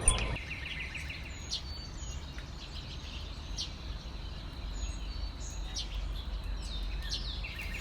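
Songbirds chirping and calling: scattered short, sharp chips, with a quick trill of repeated notes at the start and again near the end. A steady low rumble runs underneath.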